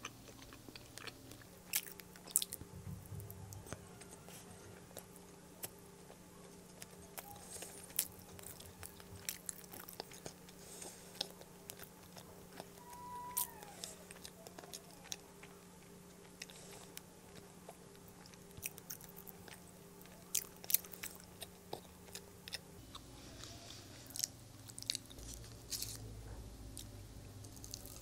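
Close-miked chewing and biting of Indian sweets, with many sharp mouth clicks and smacks at irregular intervals.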